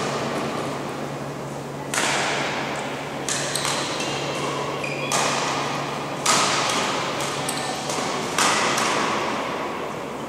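Badminton rackets striking shuttlecocks in rallies on other courts: sharp hits about a second apart at irregular spacing, each echoing through the large sports hall, over a steady low hum.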